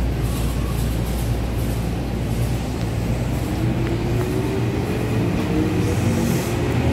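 An electric commuter train running alongside the platform with a steady low rumble. From about halfway through, a traction-motor whine rises steadily in pitch as the train picks up speed.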